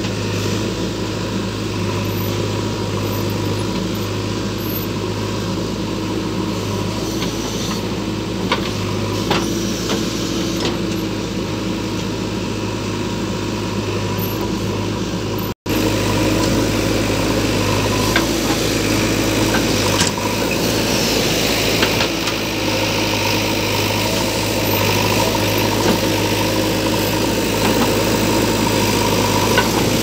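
JCB 3DX backhoe loader's diesel engine running steadily, with a few scattered knocks and clatters. The sound cuts out for an instant about halfway through, then carries on with more clatter.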